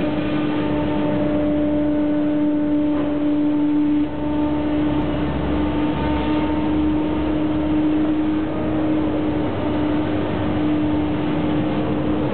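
A river cargo boat's engine running steadily, heard from on board: a constant drone with a steady humming tone that holds for the whole stretch.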